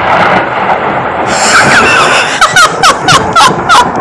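Loud rumbling thunder from a close lightning strike. In the second half, a quick run of about eight short, high-pitched, falling cries sounds over it.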